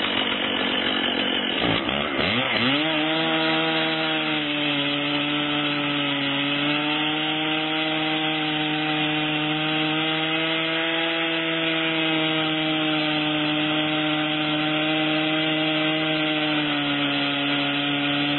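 Chainsaw at full throttle ripping lengthwise along the side of a log in an Alaskan mini mill. About two seconds in the engine note dips sharply and climbs back, then it holds a steady pitch under load.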